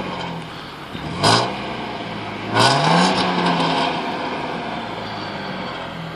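Mercedes-Benz W140 S320's 3.2-litre straight-six engine revving as the car pulls away: a short blip of the throttle about a second in, then a rev that rises near three seconds in and holds steady before easing off.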